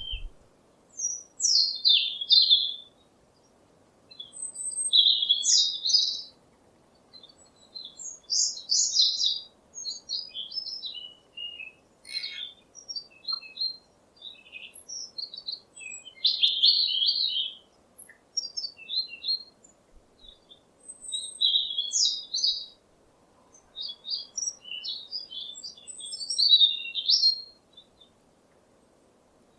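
Songbirds singing and chirping in a forest: short bursts of high, quick, twittering phrases every second or two, with brief pauses between them.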